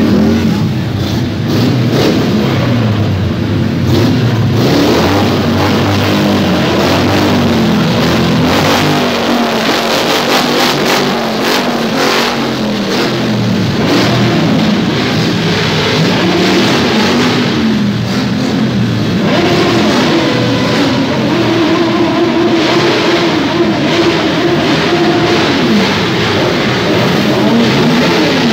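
Motorcycle engines running and being revved over and over, the pitch climbing and dropping every few seconds.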